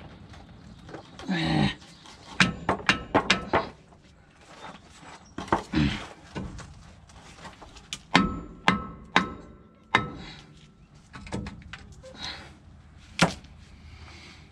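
Hammer blows on steel truck brake hardware while knocking out seized bolts. A quick run of about six strikes comes first, then three strikes that leave a metallic ring, and a single strike near the end.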